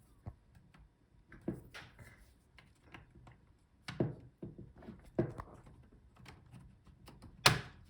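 Plastic bottom case of a laptop being pried off its chassis: a scattering of sharp clicks and small knocks as the snap clips let go, the loudest near the end.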